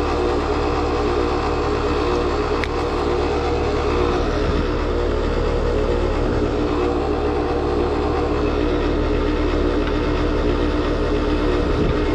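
Heat pump compressor in an R-410A outdoor unit running with a steady, horrible-sounding mechanical noise and no reversing-valve hiss. The technician takes the noise for an internal mechanical failure in the compressor, which is barely pumping.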